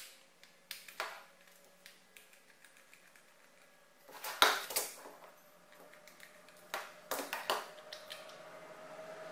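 Phillips screwdriver working screws out of a hard plastic toy case: scattered small clicks and knocks of metal on plastic, with a louder cluster of knocks about four and a half seconds in and a few more near the end.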